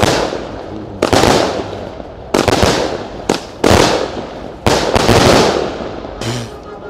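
A 49-shot 20 mm firework cake (a 'Mystery Strobe' strobe cake) firing shells that burst overhead. There are about seven sharp bangs, unevenly spaced, each trailing off over about a second, and the last comes about five seconds in.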